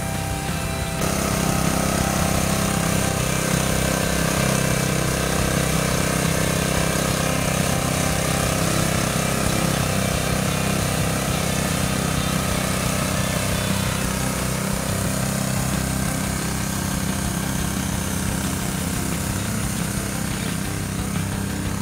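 Honda GX160 single-cylinder petrol engine running steadily on a homemade mini rotary cultivator, getting louder about a second in.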